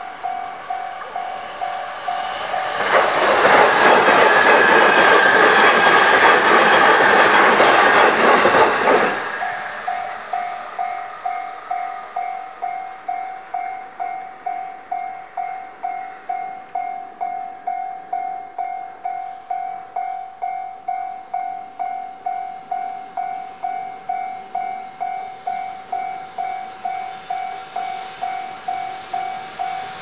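Japanese railway crossing bell ringing, a steady quick repeating ding while the barrier is down. About three seconds in, a train passes over the crossing for some six seconds, its wheels and rumble loud enough to drown the bell, which then rings on alone.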